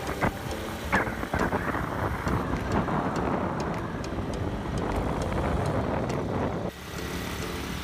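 Wind rushing over a moving camera microphone as it travels with a pack of road cyclists, with a few sharp knocks in the first second or so. The rush drops suddenly near the end.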